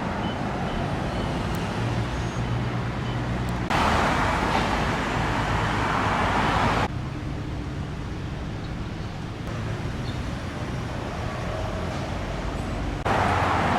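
Road traffic: a steady rumble of passing vehicles with a low engine hum. The level jumps up or down abruptly about four seconds in, about seven seconds in, and again near the end.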